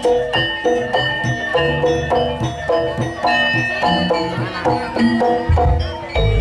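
East Javanese jaranan gamelan music: pitched metal percussion struck in a steady rhythm, about three notes a second, over low drumming.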